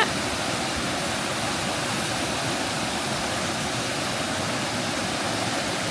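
Waterfall cascading over shale rock: a steady, even rush of falling water.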